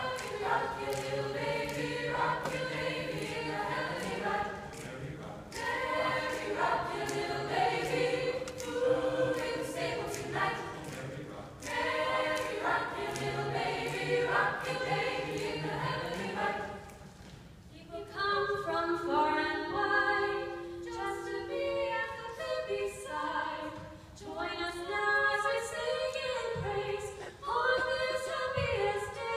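High school choir of mixed voices singing a Christmas song. Low voices hold a steady note under the melody for the first half; the singing drops away briefly about two-thirds through, then comes back in.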